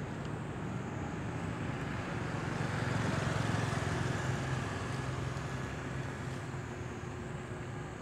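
A low, steady motor rumble, as of a passing road vehicle, swelling about three seconds in and fading slowly again.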